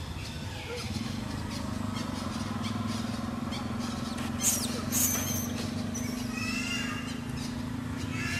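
Two sharp, shrill monkey squeals about halfway through, followed a second later by a short run of wavering calls, over a steady low hum.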